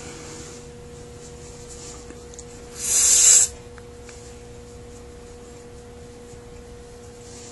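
One short, loud hiss about three seconds in, lasting well under a second, like a burst of spray or air. A faint steady tone hums under it throughout.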